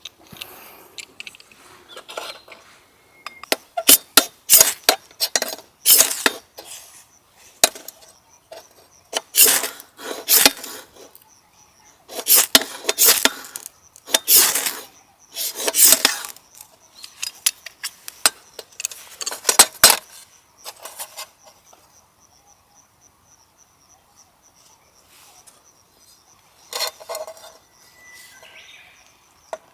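Irregular clatter of sharp knocks and clinks, many in quick succession, dying away about two-thirds of the way through, with one more brief clatter near the end. A faint steady high trill, like insects, runs underneath.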